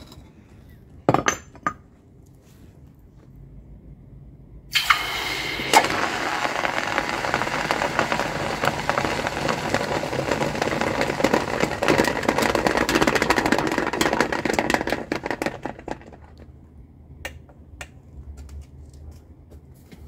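A few sharp metal clinks. About five seconds in, a hot aluminium ingot is quenched in water: a sudden loud sizzling hiss full of crackling. It holds for about ten seconds, then dies away.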